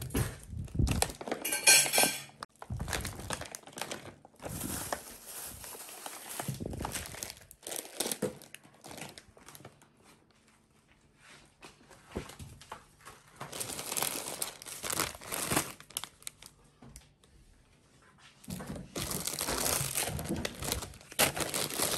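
Plastic grocery bags and packaging crinkling and rustling as groceries are unpacked, in irregular bursts with short lulls. A brief sharp clatter about two seconds in is the loudest sound.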